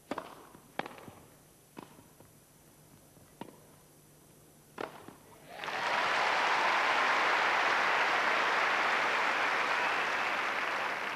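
Tennis rally: about five sharp strikes of racket on ball over five seconds, then crowd applause that starts about five and a half seconds in and carries on at a steady, louder level.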